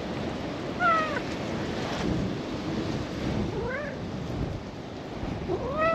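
Orange-and-white cat meowing three times while being stroked: a short falling meow about a second in, a short rising one past the middle, and a rising-then-falling one at the end. Steady wind noise on the microphone underneath.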